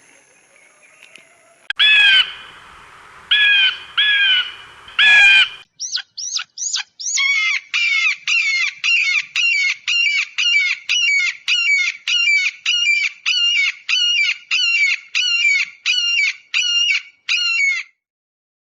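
A bird calling loudly: a few harsh calls, then a long, even run of about two calls a second that stops abruptly near the end.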